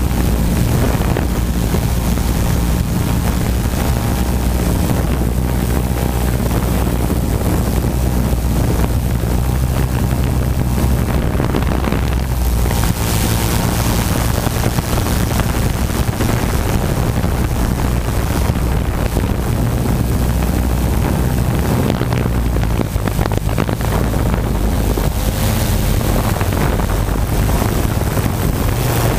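Tarot quadcopter's electric motors and spinning propellers, heard up close from the camera on its frame as a loud, steady multi-pitched hum with a rushing noise over it.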